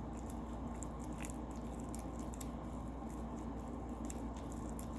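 Homemade slime being worked by hand, giving faint, irregular sticky clicks and small pops over a steady low room hum.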